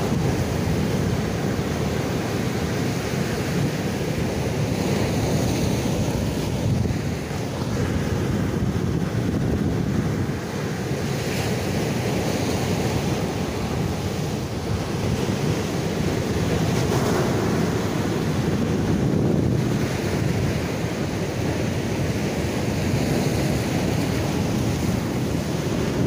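Strong, high surf breaking against a concrete breakwater and rocks: a continuous rushing wash of water with no separate crashes standing out, and wind buffeting the microphone.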